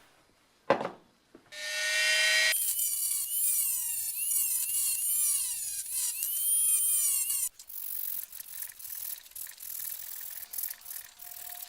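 A small power tool running with a whine that wavers up and down in pitch for about five seconds, after a single thump near the start. Then lighter scraping and clicking of hand work on metal parts.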